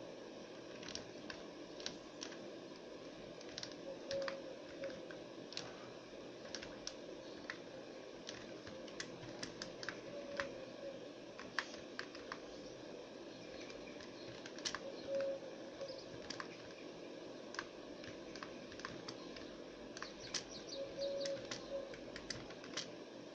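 Computer keyboard keys clicking irregularly, singly and in quick runs, as a game is played from the keyboard. A few brief faint tones sound now and then under the clicks.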